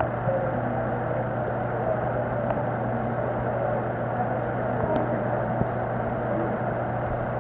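Steady low mechanical hum with a constant low tone and an even background noise, with a few faint ticks.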